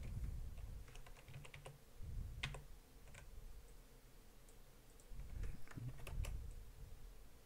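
Computer keyboard and mouse clicks: scattered single taps, clustered about a second in and again near six seconds, with low muffled bumps underneath.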